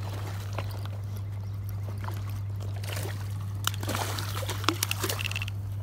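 Water sloshing and trickling at a rocky river's edge, with scattered light clicks and a steady low hum underneath.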